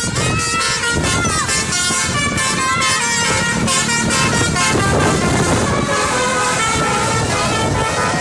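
Bus 'telolet' horn: a set of air horns sounding a quick melody of changing notes, loud over road traffic noise.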